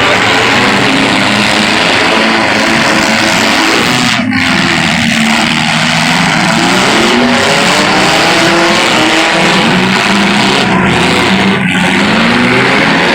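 Several demolition derby cars' engines running hard at once, loud and continuous, their pitches rising and falling over one another as the drivers rev and back into each other.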